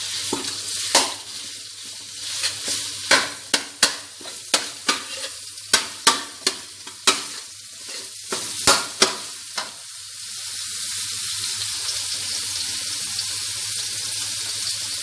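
Pork frying with chilies in hot oil, sizzling while a spatula stirs it, knocking and scraping against the pan in irregular clicks. About ten seconds in the stirring stops and a steady sizzle carries on.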